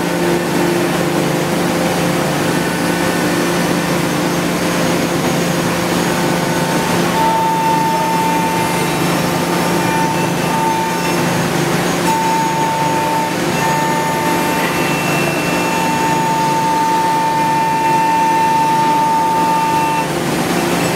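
5-axis CNC wood router running: a steady mechanical hum, joined about a third of the way in by a high whine that comes and goes.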